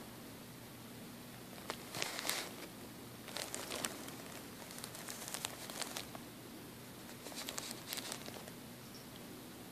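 Thin plastic bottle crinkling and crackling in three short bouts as it is gripped and handled, the first about two seconds in and the last near the end.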